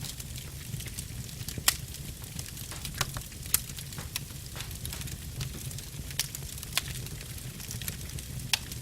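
Wood fire burning in a fireplace: a light steady crackle with about half a dozen sharp pops from the burning logs, over a steady low rumble.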